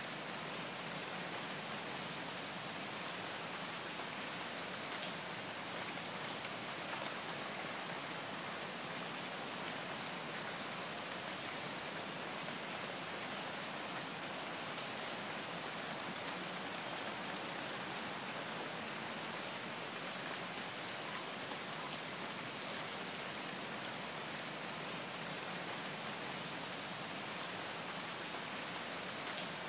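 Steady rain: an even, unbroken hiss with a few faint drop ticks.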